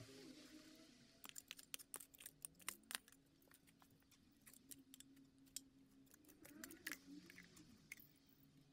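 Near silence with scattered faint sharp clicks and crackles, in a cluster a second or two in and again about seven seconds in, over a faint steady low hum.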